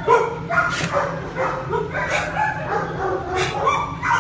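Dogs barking and yipping, several short calls a second, with a few louder sharp barks among them.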